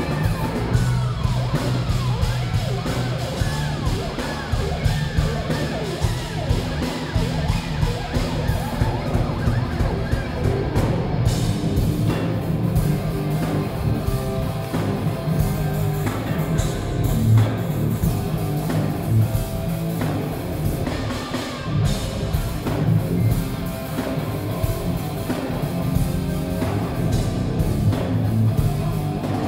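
Live rock band playing loudly and without a break: lead electric guitar over bass guitar, drum kit and keyboard. It is recorded on a smartphone microphone near the stage, so the sound is muffled, with heavy, muddy bass.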